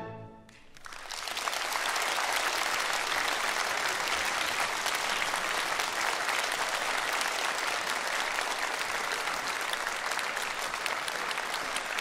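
The orchestra's final chord dies away, and about a second in an audience breaks into steady applause that goes on without letting up.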